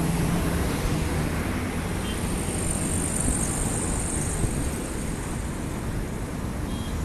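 Street traffic: cars driving past, a steady wash of engine and tyre noise, with a brighter hiss in the middle as one car goes by close.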